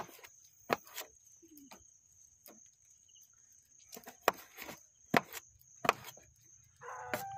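Kitchen knife chopping sea cucumber on a wooden cutting board: single sharp knocks of the blade hitting the board, irregularly spaced, a few in the first second and a quicker run of them past the middle. A steady high insect trill runs underneath.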